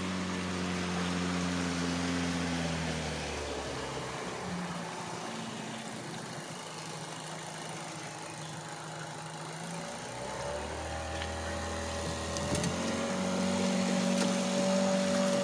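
Outboard motor of a small passing boat running steadily. It fades in the middle, then grows louder again from about two-thirds of the way through, with its pitch rising as it comes closer.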